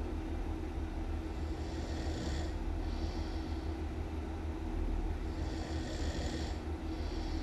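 A person snoring loudly and rhythmically, with a low rumble and a hissing breath in and out, two full breaths over the few seconds.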